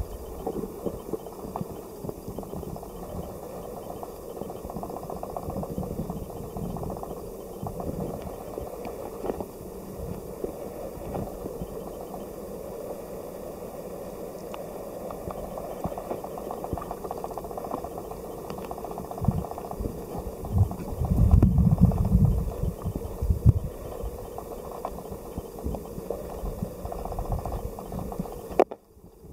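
Shallow stream water heard through an underwater camera housing: a steady muffled rushing with scattered small clicks, and a run of loud low thumps and rumbling about 20 to 23 seconds in. The sound cuts out briefly just before the end.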